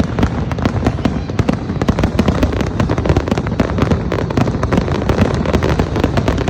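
Fireworks display going off in a dense, continuous barrage of sharp bangs and crackles, many every second, over a low rumble.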